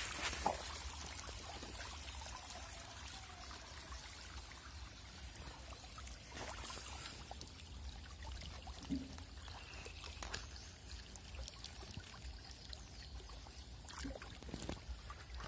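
A dense shoal of hybrid magur catfish splashing and churning at the pond surface as they feed on floating pellets: a faint continuous watery splashing with a few louder splashes.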